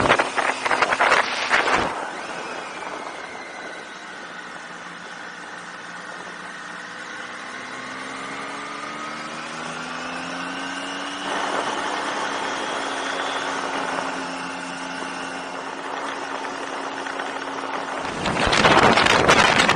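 Triumph Tiger 800's three-cylinder engine running under way, its pitch dipping and then climbing slowly over several seconds as the bike accelerates. Heavy wind rushes over the microphone at the start and again near the end.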